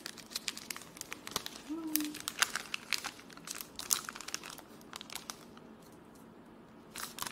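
Clear plastic sleeve crinkling as sticker sheets are slid out of it, a dense run of crackles that thins out after about five seconds.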